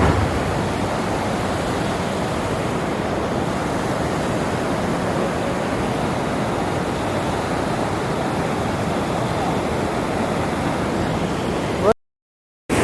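Steady rush of the Panjkora River in heavy flood, running high and fast. The sound cuts out abruptly for under a second near the end.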